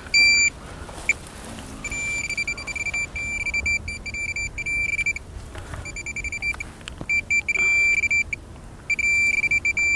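Handheld metal-detecting pinpointer sounding a steady high-pitched beep in stretches of about one to three seconds with short gaps, as it is probed into the soil of a dig hole. The beep is its alert that a metal target is right at the probe tip, here a copper coin.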